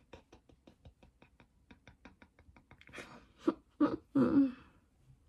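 Fingers squashing a prosthetic nose made of special-effects modelling putty: a run of faint small clicks and squishes. About three and a half seconds in come a few short, louder voice sounds.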